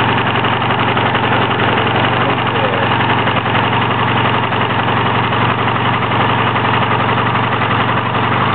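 Honda V65 Magna's 1100 cc V4 engine running steadily at a fast idle. It is not firing quite right, which the owner thinks may be from leftover Sea Foam in the fuel.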